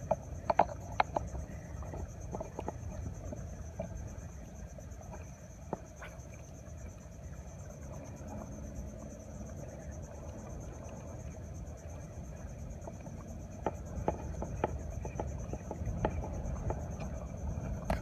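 Steady high chirring of insects over a low rumble of wind on the microphone, with scattered small clicks.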